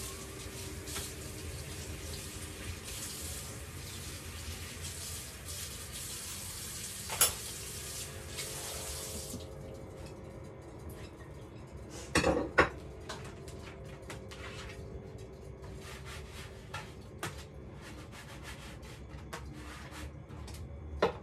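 Kitchen tap running water into a sink, shut off about halfway through. Then dishes clatter on the counter, loudest a few seconds after the water stops, followed by light clicks and taps.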